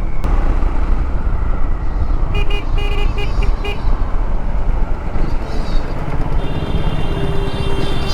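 Triumph Scrambler 400X single-cylinder motorcycle riding in heavy city traffic, its engine and road noise steady underneath. Vehicle horns honk over it: a rapid string of short beeps about two and a half seconds in, then a longer horn blast held for nearly two seconds near the end.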